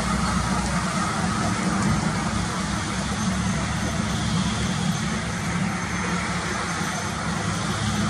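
Steady highway traffic noise: heavy trucks and other vehicles passing, with a constant low engine rumble under the tyre and road noise.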